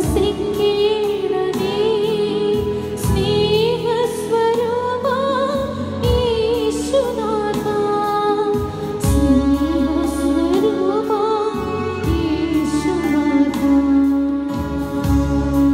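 A Christian communion hymn, sung with vibrato over steady sustained instrumental accompaniment.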